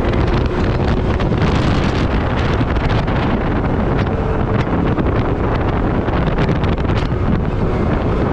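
Wind buffeting the microphone over the steady engine and tyre noise of an open Can-Am side-by-side driving at about 40 mph.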